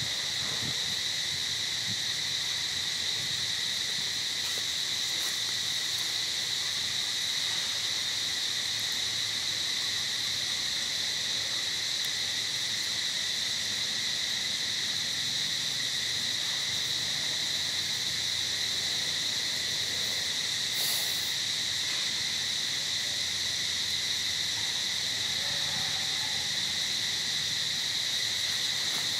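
Steady, high-pitched insect chorus droning unbroken at one pitch.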